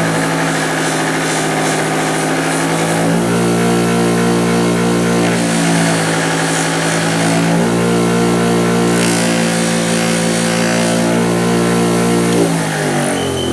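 Bench grinder running a wire wheel with a steady motor hum, with stretches of scratchy brushing as metal pliers are held against the wheel. Near the end it is switched off and the pitch falls as the wheel coasts down.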